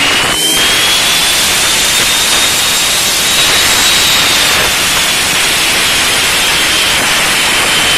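Homemade mini table saw running free, its blade driven 1:1 by a 360 W washing-machine motor at very high speed. A loud rushing noise carries a high whine that rises in pitch through the middle and then settles back down.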